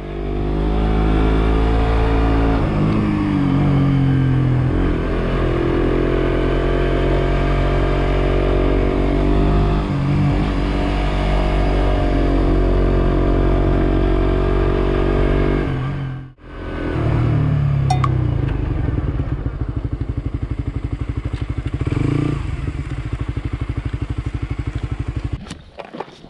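Suzuki GSX-S125's single-cylinder four-stroke engine running loudly, its pitch rising and falling several times as the revs change. The sound breaks off briefly about two-thirds of the way through, then carries on and drops away near the end.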